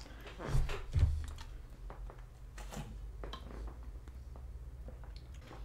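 Two dull thumps close together near the start, then faint scattered clicks of a plastic bottle being handled and drunk from.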